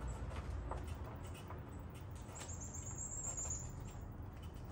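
Quiet hand work with scattered faint clicks, as screws and trim are handled at the headlight bezel. A thin, high-pitched trill lasts about a second and a half near the middle.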